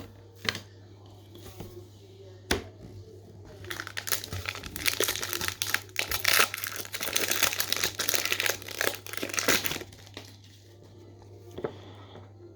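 A trading card pack wrapper being torn open and crinkled, about six seconds of dense crackling in the middle, after a couple of sharp taps.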